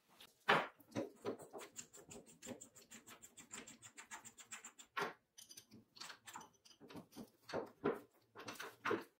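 Restored Goodell-Pratt hand drill being handled: a fast, even run of light metallic ticks, about seven or eight a second, as the chuck and gearing are turned. Then scattered clicks and taps as a spade bit is set in the chuck and tightened.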